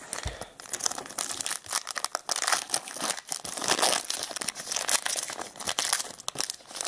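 Foil wrapper of a 2006 Bowman baseball card pack being torn open and crinkled by hand, a continuous crackling with many sharp snaps.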